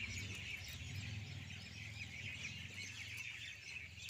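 Chickens clucking and small birds chirping in the background, over a low steady hum.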